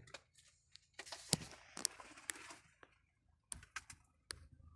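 Irregular sharp clicks and crackling, about half a dozen distinct ticks, from hot fried chicken being torn apart and its paper wrapping handled.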